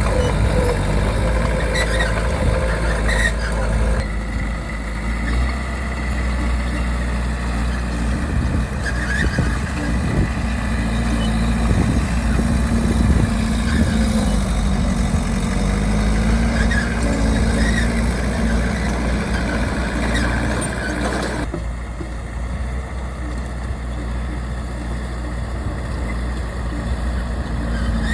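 Bulldozer's diesel engine running steadily, its pitch rising and falling a little as the load changes. The sound changes abruptly about four seconds in and again near the end.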